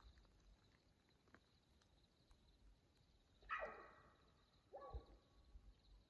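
Mountain lion calling: two calls about a second apart, each sliding down in pitch, the second shorter than the first.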